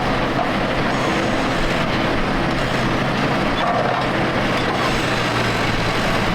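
Engine of a tractor working in mud, running steadily with a constant low hum.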